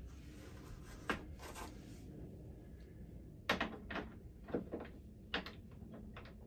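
Metal clicks and knocks of an L-track double stud fitting, with a bolt, nut and washer on it, being handled and pushed into an aluminium L-track rail: a couple of light clicks about a second in, then a quicker cluster of knocks from about three and a half seconds to five and a half.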